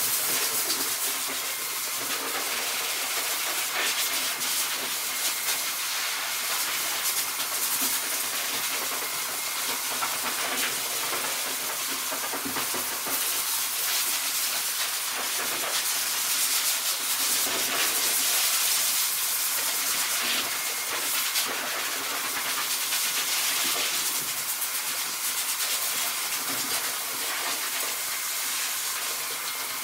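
Corded electric pet clippers running steadily while shaving a husky's short undercoat, a continuous hiss with a faint steady whine underneath.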